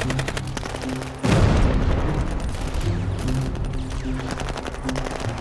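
Rapid automatic rifle fire with a sudden loud explosion about a second in, over low, sustained dramatic music.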